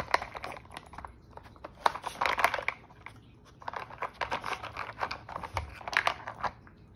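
A dog nosing and mouthing a plastic treat puzzle board: rapid, irregular clicks and clatter of its plastic lids and lift-out pieces. Denser spells of rattling come about two seconds in and again from about four to six and a half seconds in.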